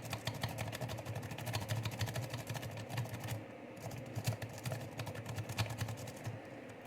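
Sparrows Medusa snake rake being raked rapidly through the pins of a six-pin Euro cylinder lock, a fast run of small metallic clicks and scrapes, with brief pauses about halfway and near the end. The raking is driving the security pins into a false set.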